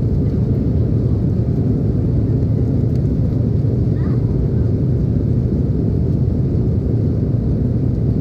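Airliner jet engines and rushing air during departure: a steady, even low rumble.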